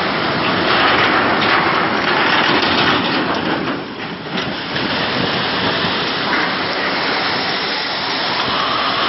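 Rough sea breaking over a boat: a loud, continuous rush of crashing water and spray, easing briefly about four seconds in.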